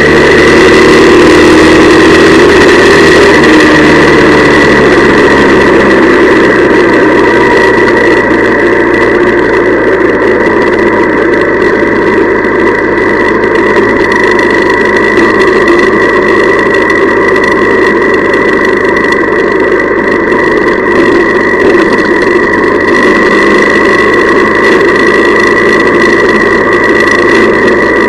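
Honda CL175's small air-cooled parallel-twin engine running; its pitch falls over the first few seconds and then holds steady, with a steady high whine above it.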